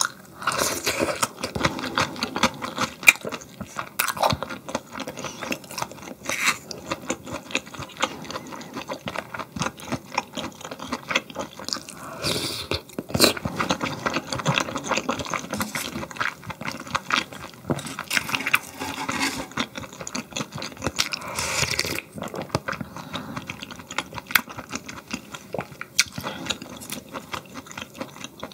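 Close-miked eating sounds: steady chewing with many small clicks of utensils, and a few second-long wet slurps, typical of eating Korean cold noodles in icy broth.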